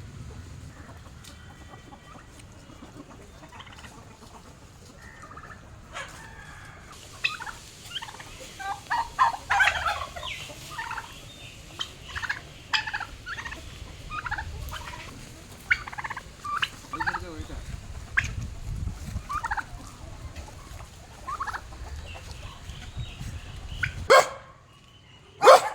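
Hens and a turkey calling: quiet at first, then from about a quarter of the way in a run of short, overlapping clucks and calls, with two loud, sharp cries near the end.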